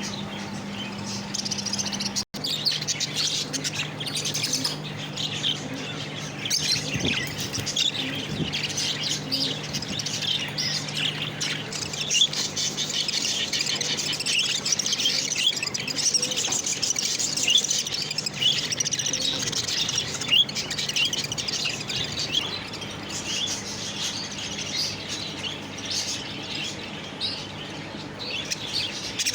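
Lovebirds chirping and chattering continuously, many short overlapping chirps, over a faint steady low hum.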